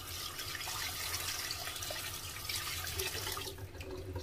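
Kitchen tap water running and splashing onto a prawn and plate in a colander in the sink, stopping about three and a half seconds in.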